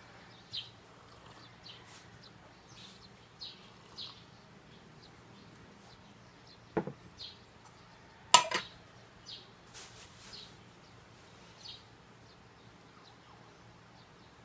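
A few sharp clicks and knocks from the plastic desk fan being handled and opened, the loudest about eight and a half seconds in. Small birds chirp now and then in the background.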